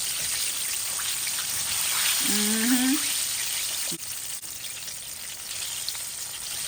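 Chicken wings deep-frying in hot oil with a steady sizzle. A sharp click comes about four seconds in, and the sizzle is a little quieter after it.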